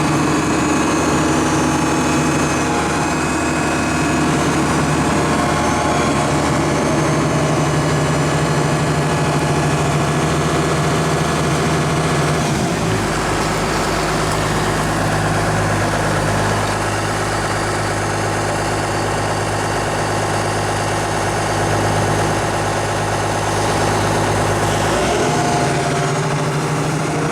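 Doosan DX140WV wheeled excavator's diesel engine running steadily. Its engine note drops to a lower speed about halfway through and comes back up near the end.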